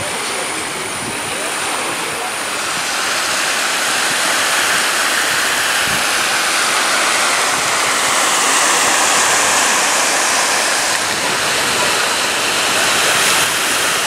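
Small sea waves washing in along a sandy and rocky shore, a steady watery hiss that grows a little louder after about three seconds.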